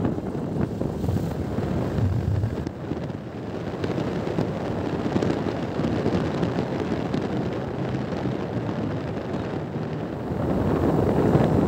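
Bajaj Pulsar NS160 single-cylinder motorcycle on the move: the engine running under wind rushing over the microphone. The sound grows louder about ten seconds in.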